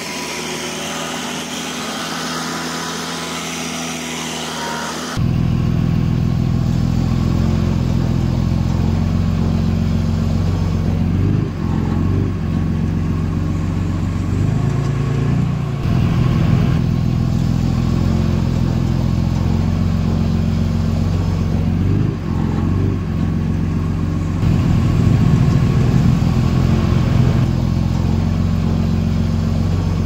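A lighter, higher-pitched engine runs for the first five seconds, then gives way abruptly to a louder heavy-equipment diesel engine running steadily with a deep hum, its pitch dipping briefly a few times.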